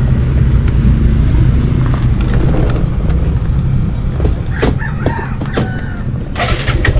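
Suzuki Gixxer's single-cylinder engine idling with a steady low, pulsing rumble. In the second half, chickens cluck and squawk in several short calls.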